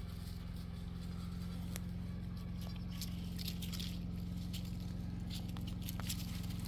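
Young goat biting and tearing at grass: faint, irregular crackles and ticks over a steady low hum.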